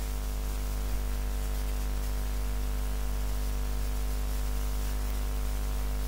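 Steady electrical hum and buzz over a layer of hiss.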